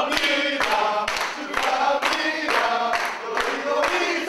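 A group of men singing a celebratory chant together while clapping along in a steady rhythm.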